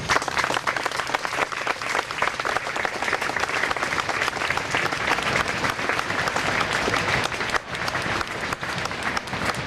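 A crowd applauding, many hands clapping at once, the applause starting suddenly and carrying on steadily.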